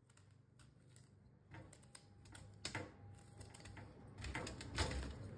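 Kitchen knife cutting peeled jackfruit held in the hand into chunks, with faint, irregular clicks and taps as the blade goes through and pieces drop into a steel dish. The clicks come more often from about four seconds in.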